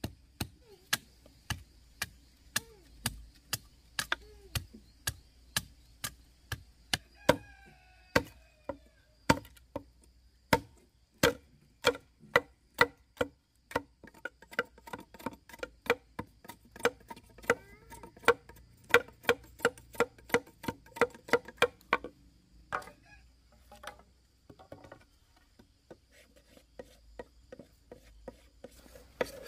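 A long run of sharp, regular knocks, as of a tool striking wood, about two a second at first and quickening to three or four a second in the middle, then breaking off a little over two-thirds of the way through with only a few scattered knocks after.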